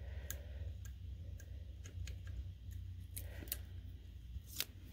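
Faint scattered clicks and taps of paper and card-making supplies being handled on a tabletop, a sharper click near the end, over a low steady hum.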